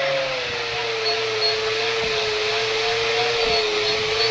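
Angle grinder running with a paint-stripping disc, taking old paint off a steel lathe bed bar, a steady high motor whine over the rush of the disc on the metal. The pitch sags a little within the first second as the disc is pressed onto the steel.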